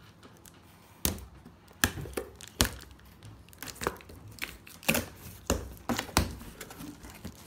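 Scissors cutting the packing tape on a cardboard box, and the cardboard being handled: a string of sharp clicks and knocks, about ten of them, spread irregularly over several seconds.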